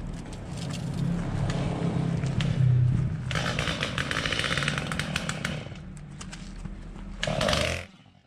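A small petrol engine running steadily, cutting off just before the end. For about two seconds in the middle a dense crackling, crunching noise sits over it.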